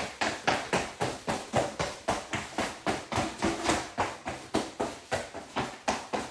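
Feet stomping on the floor in a fast, even beat, about four stomps a second, from frantic dancing.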